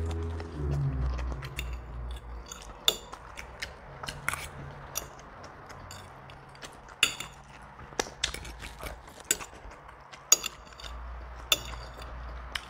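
A child eating noodles from a plate with a fork: sharp clinks of the fork against the plate at irregular moments, with chewing.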